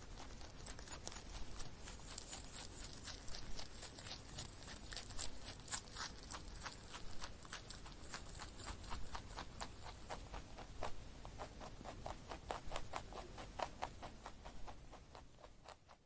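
Rabbit close to the microphone: a quick run of crisp clicks and crunches, several a second, which fades out near the end.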